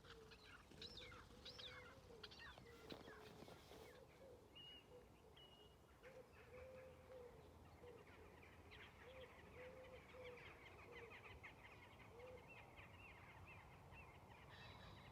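Faint birdsong: many short high chirps and trills, with softer low calls repeating every second or so.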